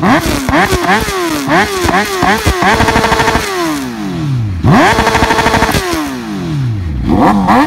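Honda CBR1000RR Fireblade's inline-four engine revved while standing still: a quick run of short throttle blips, about three a second, then three longer revs, each held briefly before dropping back down, the last near the end.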